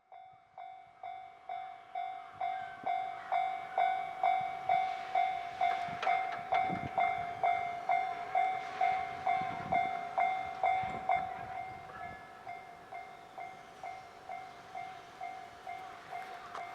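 Japanese railway level-crossing warning bell dinging about twice a second at one steady pitch. It swells in over the first few seconds and drops to a lower level after about eleven seconds. A low rumble comes through in the middle.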